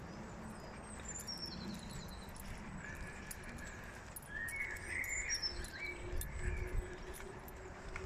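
Several songbirds singing in early spring: a high, quickly descending trill heard twice, with warbling phrases lower down between them.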